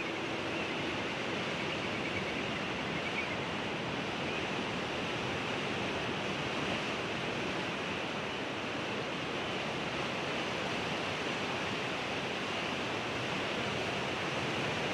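Ocean surf washing steadily, an even hiss without separate breaking waves.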